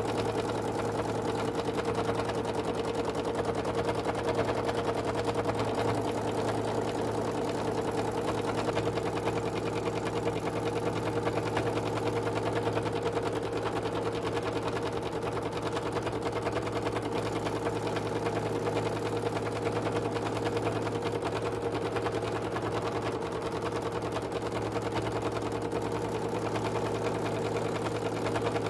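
Domestic sewing machine running steadily at speed through free-motion stitching, the needle going up and down in a rapid, even run without stopping.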